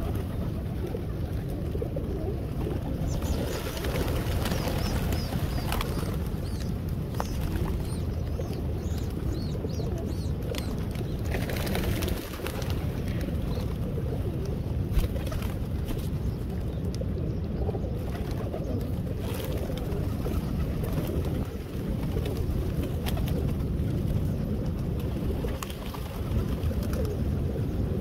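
A large flock of feral rock pigeons cooing together in a continuous low murmur while feeding, with scattered sharp clicks and short flurries of wing flapping.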